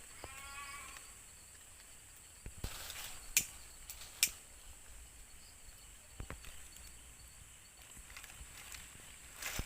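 Crickets trilling steadily in a night-time forest, a constant high-pitched drone. A short pitched call comes near the start, and a few sharp clicks follow in the middle.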